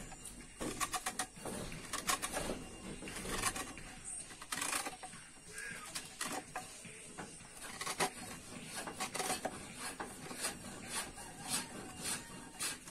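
Knife carving a hole into the wall of a green bamboo tube: irregular clicking and scraping cuts.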